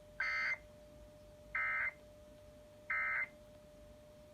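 Emergency Alert System end-of-message (EOM) tones: three short bursts of warbling digital SAME data, evenly spaced, over a faint steady tone. The three bursts mark the end of the alert message.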